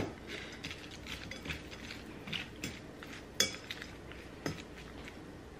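Eating utensil clinking and scraping against a salad bowl as a dressed salad is mixed: a handful of sharp clinks with soft scraping between.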